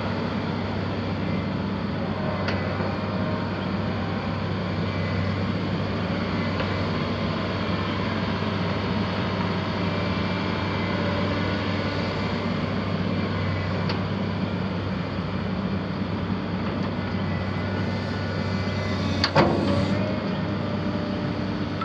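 The Volvo D6D six-cylinder diesel engine of a 2004 Volvo EW180B wheeled excavator running at a steady speed. A single sharp knock comes near the end.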